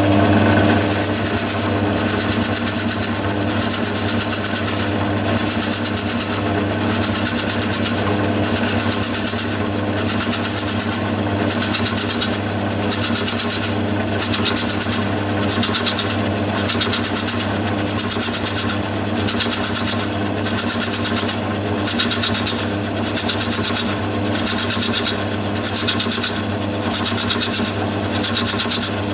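Myford ML7 lathe running with an end mill in its ER40 collet chuck, cutting a brass block clamped on the cross-slide milling pallet: a steady machine drone under a hissing cutting noise that swells and fades about once a second.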